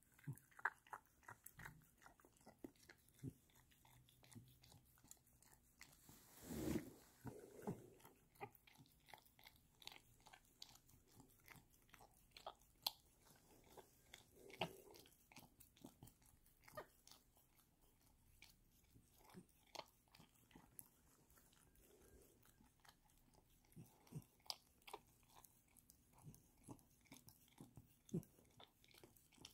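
A Border Terrier lapping yogurt from a small bowl: a long run of quick, irregular wet licking and smacking clicks. About six and a half seconds in comes one louder, longer rush of noise.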